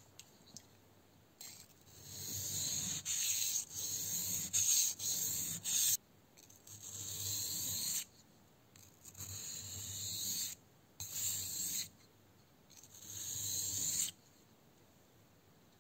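Grafting knife blade stroked along a Samura 1000-grit water stone: a series of scraping strokes, each up to about two seconds long with short pauses between, stopping shortly before the end.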